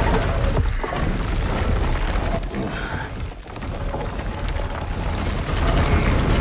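Film soundtrack: a dramatic score with deep, rumbling booms, dipping briefly about three seconds in.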